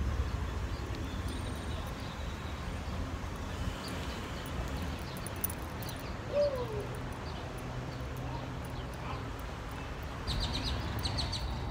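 Outdoor ambience picked up by a handheld phone: a steady low rumble of wind and handling noise. About six seconds in there is a brief falling call, and near the end a quick run of short, high bird chirps.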